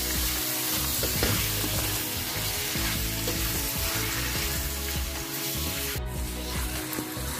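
Raw chicken pieces sizzling in hot oil with fried onions and ginger-garlic paste, stirred and turned over with a wooden spatula against the pan; a steady frying sound.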